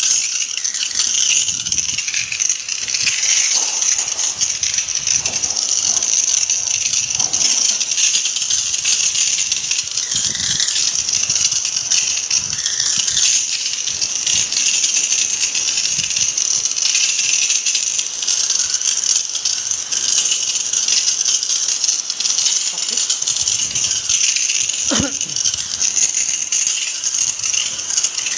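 High-pressure water jet spraying steadily onto the coils and metal housing of a window-type air conditioner during cleaning, a continuous hiss with a spattering rattle.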